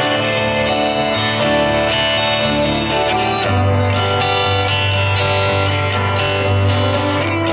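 Live amateur rock band playing an instrumental stretch of a song, with guitar over bass and no singing. A deep bass note comes in strongly about three and a half seconds in.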